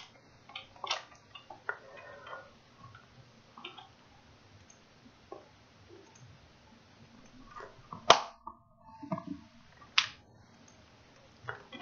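Computer mouse clicking now and then: a few scattered single clicks, the two sharpest about eight and ten seconds in.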